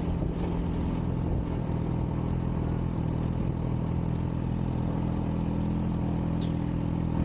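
Kawasaki Ninja H2's supercharged inline-four running at a steady low engine speed in slow traffic, an even engine note with no revving, picked up by a helmet-mounted microphone.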